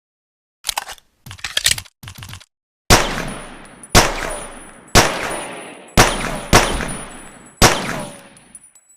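Pocket pistol sound effect: a few short dry clicks, then six gunshots roughly a second apart, each trailing off in a long echo.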